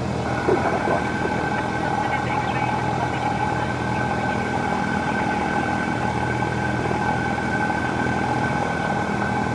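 Cessna 172's piston engine and propeller running at a steady drone, heard from inside the cabin.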